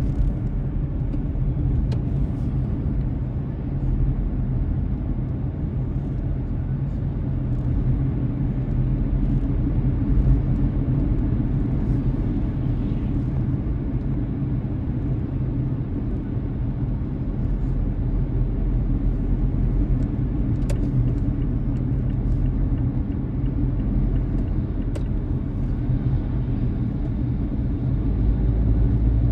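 Car driving along at steady speed: a continuous low rumble of tyres and engine.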